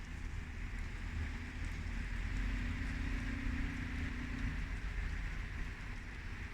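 Steady rain falling, with faint drops ticking, and wind buffeting the microphone as a low rumble. A faint low hum sounds for a couple of seconds in the middle.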